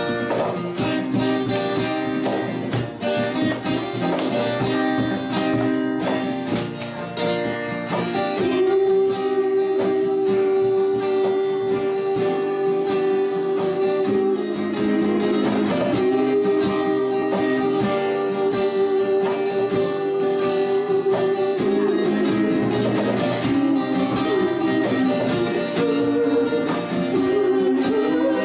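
Live acoustic band music: steady strumming on acoustic guitar, with long notes held over it for much of the middle.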